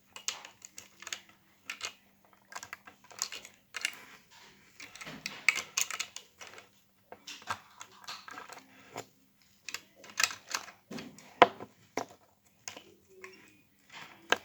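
Plastic LEGO bricks clicking and clattering irregularly as a built model is handled and taken apart, with one sharp loud click about 11 seconds in.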